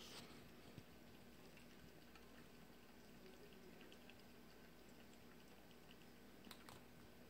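A kitten lapping liquid from a cup: a run of faint, quick laps, with a light click at the start and a couple more near the end.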